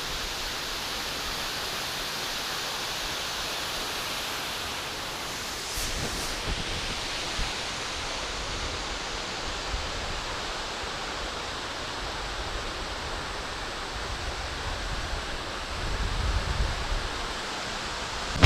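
Waterfall rushing: a steady, even noise of falling water, with some low rumbling on the microphone growing near the end.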